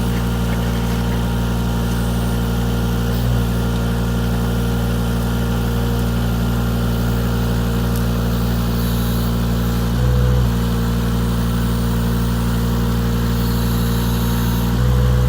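Avant 423 compact loader's engine running steadily, briefly louder about ten seconds in and again near the end.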